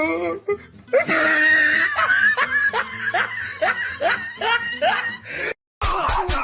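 A person laughing hard in a quick run of short bursts, about three a second, after a brief wavering wail at the start. The laughter cuts off about five and a half seconds in and music with a beat starts.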